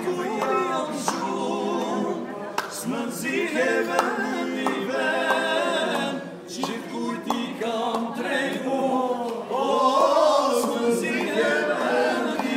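A group of men singing together without instruments.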